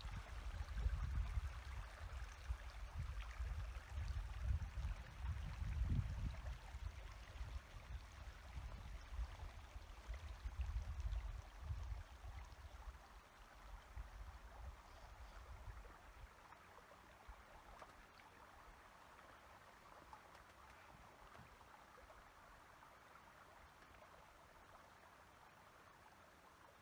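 Shallow stream running over a stony bed, with gusty low rumbling over it for roughly the first dozen seconds. After that the sound settles to a fainter, steady hiss.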